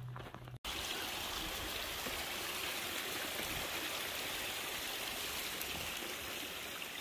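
A few footsteps, then after an abrupt break about half a second in, a stream of water running steadily as an even rushing hiss.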